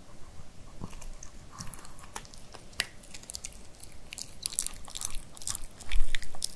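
Pomeranian chewing and licking its lips close up, a string of short wet clicks and smacks. A low thump about six seconds in is the loudest sound.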